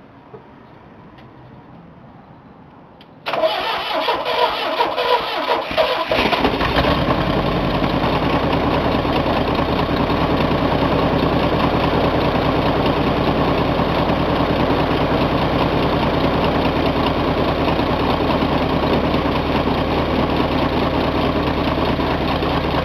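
Chevrolet S-10 pickup engine cold-starting after sitting about a month, on the key alone with no gas pedal. A few seconds in it cranks and sputters unevenly for about three seconds, then catches and settles into a steady idle.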